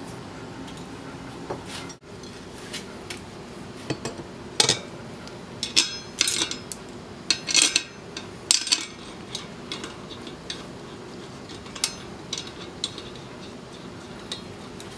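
Irregular metallic clinks and taps as steel cap screws are handled and set into the bolt holes of a Suzuki GSX-R brake rotor and an aluminium hub adapter, over a steady faint hum. The clinks are thickest in the middle of the stretch.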